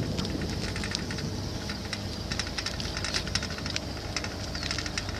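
Boat engine running steadily, with a hiss and scattered crackle of water and wind over it.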